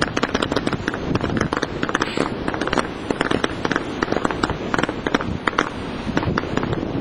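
Fireworks going off in a dense, continuous crackle of many sharp pops a second, with no pause.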